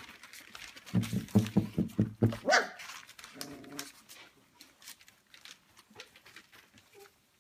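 Goldendoodle puppies barking and yelping as they play: a quick run of short, low barks about a second in, then a higher yelp that rises and falls, and a softer call a second later.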